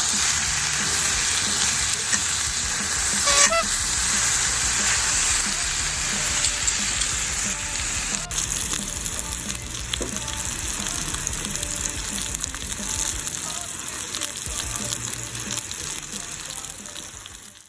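Fried rice with bacon sizzling in a hot pan while it is stirred. The sizzle is steady and eases off after about eight seconds, with quiet background music underneath, and the sound cuts off abruptly at the end.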